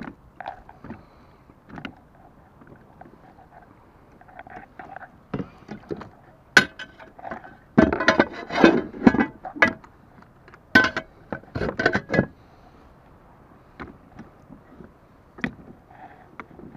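Kayak foot pedals and their drive being handled and fitted into place: sharp hard knocks, clicks and clatter, coming in two dense flurries around the middle.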